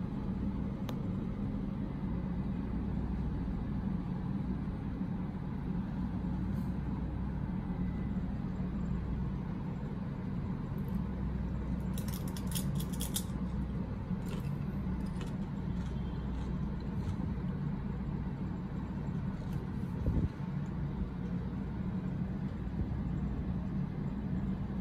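Steady low background hum, with a short run of sharp clicks about halfway through and a single thump near the 20-second mark.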